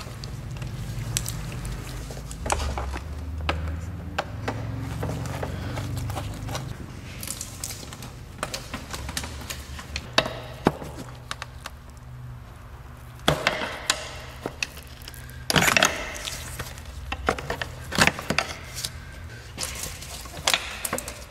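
A screwdriver clicks at a hose clamp, then a plastic engine air box is worked loose and lifted out, with scattered clicks, knocks and rattles of hard plastic. A few louder scrapes come about two-thirds of the way through.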